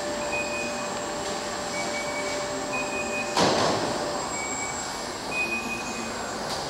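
Automated greenhouse bench transport system running: benches rolling on their wheels with a steady mechanical hum that stops a little past the middle, short repeated squeaks, and one loud clank about three and a half seconds in.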